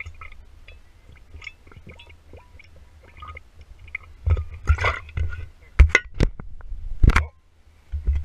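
Whiskey gurgling and sloshing in a glass bottle as a man drinks from it, with rubbing and clicks from handling the bottle. Several sharp knocks come about four to seven seconds in.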